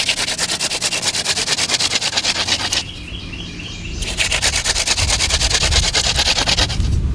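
Yucca hand-drill spindle spun between the palms on a yucca hearth board: dry wood-on-wood grinding in a rapid, even back-and-forth rhythm, burning a starter divot into the board. It runs in two spells with a short break about three seconds in.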